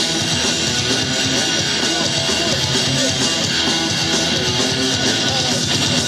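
Loud, upbeat pop-rock music with electric guitar and drums, a backing track for a dance performance.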